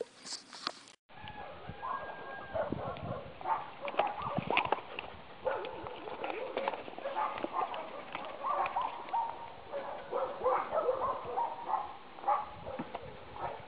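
A dog chewing a bone, with many sharp cracks and crunches, mixed with short animal calls.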